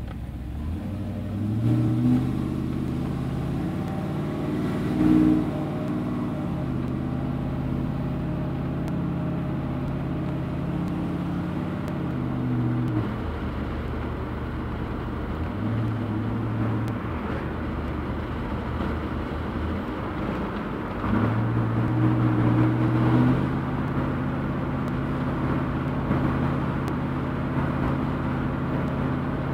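An LS-series V8 in a swapped vehicle pulling away and accelerating on the road, not yet at full operating temperature. The engine note steps up and drops back several times as the vehicle gathers speed and shifts gears, a louder stretch about two-thirds of the way through.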